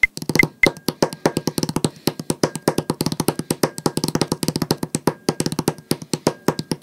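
Fingers drumming a fast, busy snare-drum part on a wooden tabletop, recorded close on a studio microphone: a quick, uneven stream of sharp taps.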